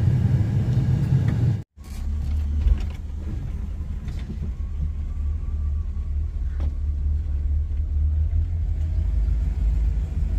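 1975 Pontiac Grand LeMans cruising, heard from inside the cabin as a steady low engine and road rumble. The sound drops out for an instant nearly two seconds in, then carries on lower and more even.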